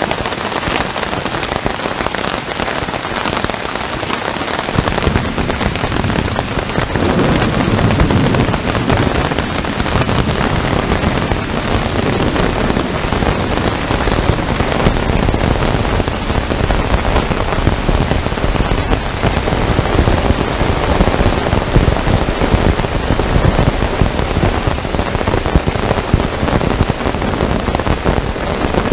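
Heavy rain falling steadily. A deep low rumble joins in about five seconds in and stays under the rain.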